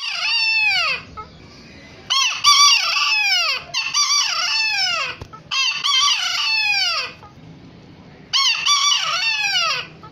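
A white rooster crowing several times in a row, each crow ending on a falling note.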